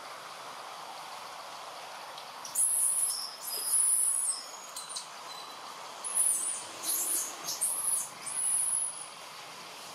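A series of about six short, very high-pitched whistled calls, starting a little over two seconds in, over a steady background hiss.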